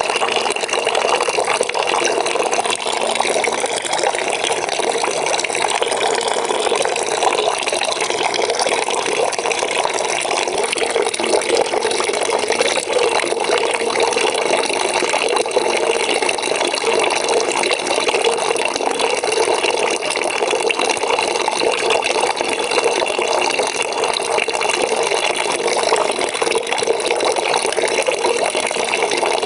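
Water running steadily into a bucket as it fills, an even splashing rush with no break.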